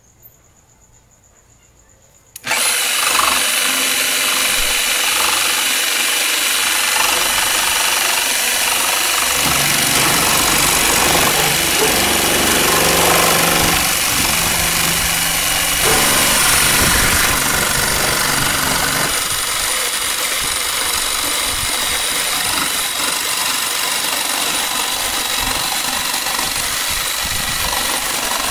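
A Bosch jigsaw starts about two and a half seconds in and runs steadily, its blade sawing through a plastic OEM fender flare.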